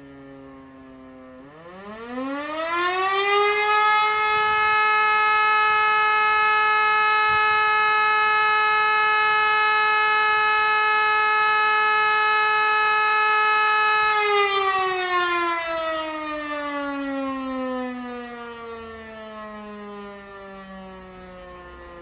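E57 electromechanical civil-defence siren spinning back up from a falling tone, rising to a steady held tone for about ten seconds, then winding down in a long falling wail. This is one blast of the German 'Feueralarm' signal, a steady tone interrupted twice, which calls out the fire brigade.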